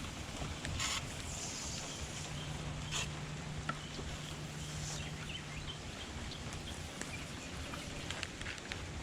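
Steady rain falling, with scattered drip ticks and a couple of short hissing bursts.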